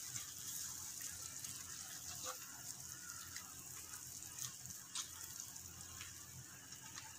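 Faint sizzling and bubbling of grated beetroot cooking in milk in a nonstick pan on high heat, with a few light clicks of a spatula stirring against the pan.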